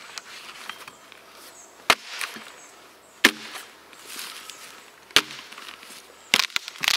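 Axe blows into a basswood log, driving the blade along a groove to split it lengthwise with light force: a sharp knock every second or two, then three in quick succession near the end as the log splits cleanly.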